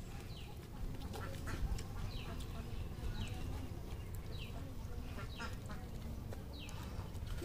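A bird calls repeatedly, a short high note falling in pitch about once a second, over a steady low rumble.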